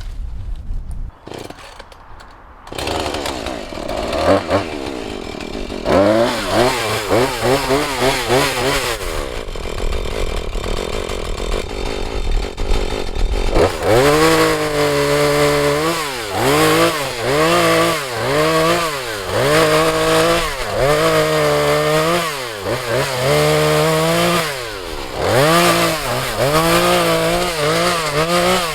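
Husqvarna 435 two-stroke chainsaw coming in about three seconds in, then running at high revs and cutting into the tree, its pitch sagging and recovering every second or two as the chain bites under load.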